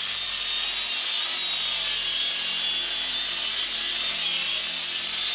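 Corded electric sander running steadily on old painted wooden floorboards, stripping the paint off, a high whine wavering slightly over the grinding noise.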